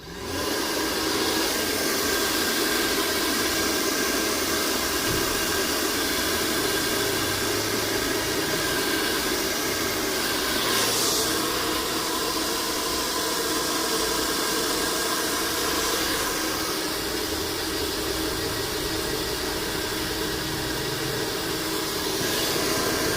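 Pet hair dryer running on its max setting: a loud, steady rush of air with a faint motor whine over it. It comes up at the start and cuts off at the end.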